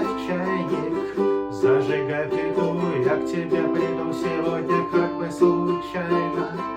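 Acoustic plucked string instrument playing chords and picked notes in a steady rhythm: the instrumental intro before the singing begins.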